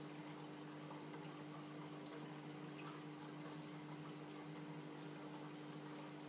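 Steady running-water sound of a reef aquarium's circulation, with a low, even hum from its pumps.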